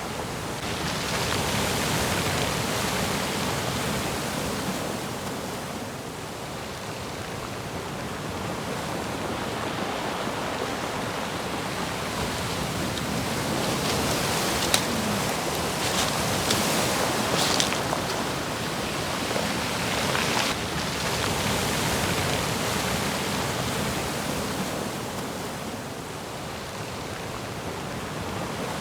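Rough sea surf: a continuous rush of breaking waves that swells and ebbs every few seconds, with sharper splashes of crashing water near the middle.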